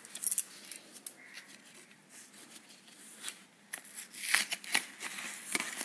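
Cardboard watch box being handled and opened: scrapes, rustles and small knocks as the black inner box is slid out of its white paper sleeve, loudest about four seconds in.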